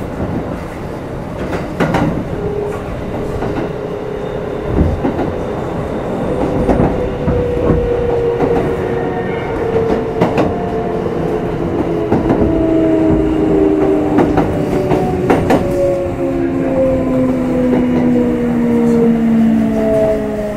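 Running sound of a Kintetsu 5211-series electric train, heard from inside motor car Mo 5212: a steady rumble with motor whine that falls slowly in pitch as the train slows. Occasional sharp knocks come from the wheels crossing rail joints.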